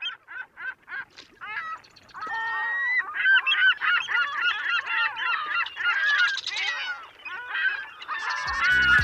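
A flock of large birds calling, starting with a quick run of short notes that swells into many overlapping cries. A beat of music comes in near the end.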